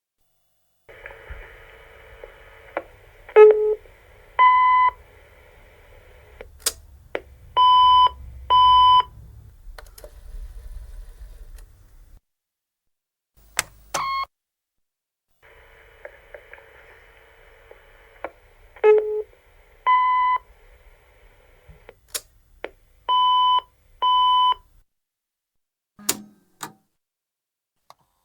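Cassette-tape telephone answering machine running its tape with a steady hiss and low motor rumble. Each run has sharp mechanism clicks, a single beep, then two short beeps about a second apart that mark the end of the message. The sequence plays twice, with clunks of the tape mechanism between and after the runs.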